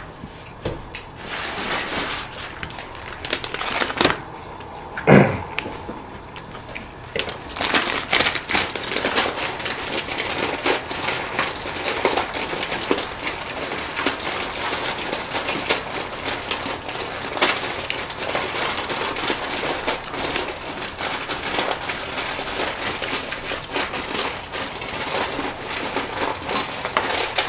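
Close-miked chewing of budae-jjigae ramyeon noodles: a dense, crackling run of mouth sounds that thickens about eight seconds in, after a few separate knocks.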